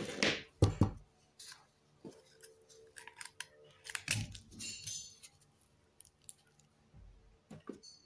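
Handling noise from a plastic bottle and a plastic lid: a sharp knock and clatter in the first second, then scattered clicks, taps and crinkles as the bottle parts are pushed and twisted together.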